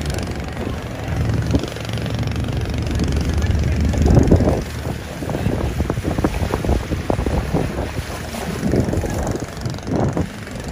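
Boat under way on a river: a steady low engine rumble and rushing water, with wind buffeting the microphone in gusts through the second half, loudest about four seconds in.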